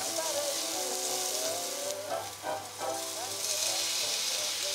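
Chopped tomatoes frying in hot oil in a stainless steel saucepan, a steady sizzle.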